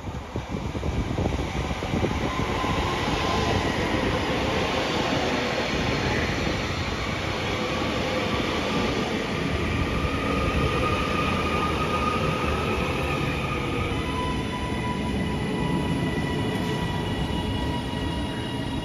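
Northern Class 331 electric multiple unit running past along the platform: a steady rush of wheels on rail with a high steady whine over it. The noise builds over the first couple of seconds as the train arrives.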